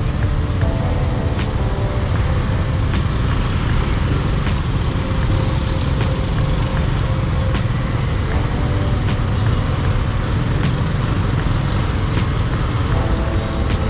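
Steady rumble of city street traffic: engines and road noise.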